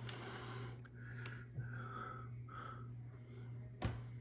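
Soft rustling of clear plastic bags as hands sort through bagged plastic miniatures, with one sharp click a little before the end, under a steady low hum.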